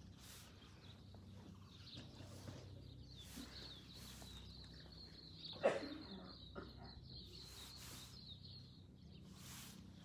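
Faint outdoor ambience: birds chirping over a low steady hum, with one brief louder sound a little past halfway.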